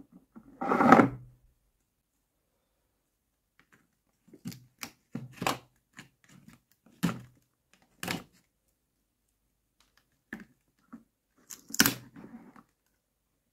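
Cardboard packaging on a plastic toy case being opened by hand: a brief rustle of handling about a second in, then a box cutter blade making a string of short scrapes and clicks as it slices the tape, and near the end the cardboard sleeve and tape being torn apart.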